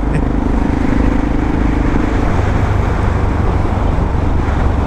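Yamaha XT600E single-cylinder engine running under way through an old Coyote aftermarket exhaust, with a steady engine note for about the first two seconds that then blends into road and wind noise on the camera's microphone.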